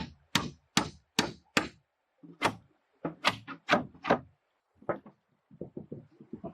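Wooden mallet driving a tapered hardwood peg down through a deck plank into the joist: a steady run of sharp knocks, about two and a half a second, then a pause and slower, uneven blows, with softer knocks near the end.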